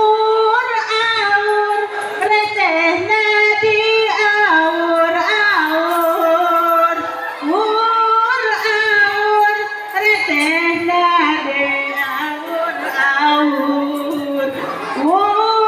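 A female voice singing a slow, ornamented melody, holding long notes and sliding between pitches.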